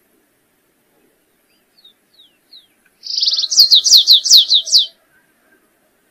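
Canário-rasteiro (stripe-tailed yellow-finch) singing: a few faint high down-slurred notes, then a loud song about two seconds long. The song opens with a fast buzzy trill and runs into a rapid series of high notes, each slurring downward.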